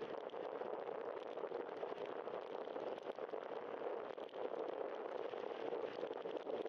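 Steady rushing noise of a bicycle riding on wet pavement: tyre hiss on the wet asphalt mixed with wind on the microphone.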